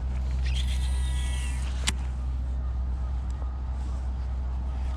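Baitcasting reel in use while flipping: a brief whir of the spool turning between two sharp clicks, the second about two seconds in. Under it is a steady low rumble.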